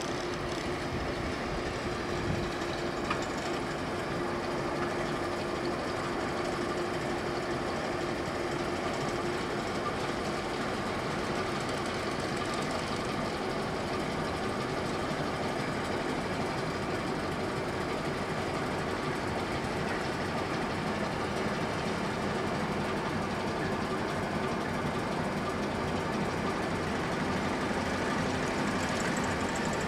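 Class 09 diesel shunter's English Electric six-cylinder engine running steadily as it slowly draws a rake of diesel locomotives along the yard. It grows slightly louder towards the end.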